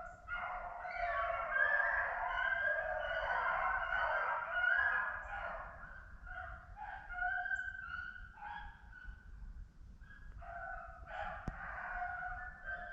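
A pack of rabbit hounds baying together while running a rabbit. The chorus is dense for the first few seconds, thins to scattered separate voices, then swells again near the end.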